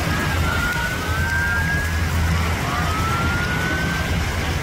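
Steady low rumble of powerboat engines. Over it, a siren wails, its pitch rising slowly twice.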